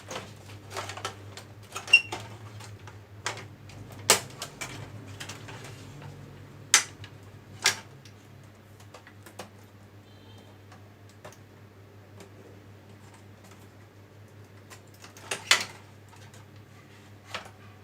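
Irregular clicks, taps and knocks of projector plastic and metal parts being handled during disassembly, several sharp ones in the first eight seconds and a louder cluster about fifteen seconds in, over a steady low hum.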